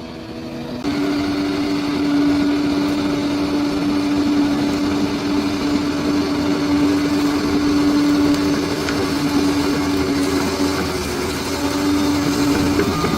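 Bulldozer's diesel engine running at a steady pitch, louder from about a second in.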